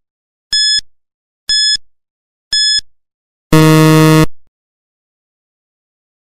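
Quiz countdown-timer sound effect: three short high beeps a second apart, then a longer, lower buzzer about three and a half seconds in as the countdown runs out.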